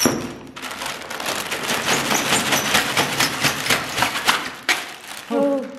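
Plastic bag of dry ice crinkling and crackling as it is tipped into a plastic bucket: a rapid, uneven crackle that stops about three-quarters of the way in.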